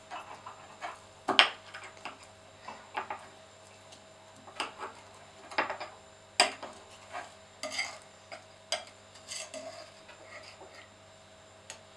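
Kitchen knife cutting through a mousse cake on a china plate: scattered short scrapes and clinks of the blade against the plate, the loudest about a second and a half in and at about six and a half seconds.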